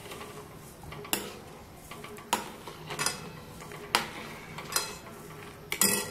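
Steel spoon stirring milk in a metal kadai, clinking and scraping against the pan about six times, spread over a few seconds, as sugar is stirred into the milk.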